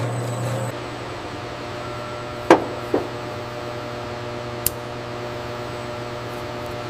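Steady machine hum with a few fixed tones, broken by two sharp knocks about two and a half and three seconds in and a short click near five seconds.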